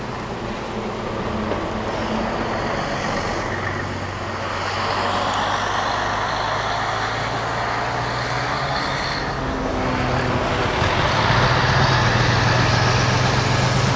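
A large road vehicle's engine running steadily, a low hum that shifts in pitch about ten seconds in and grows slowly louder.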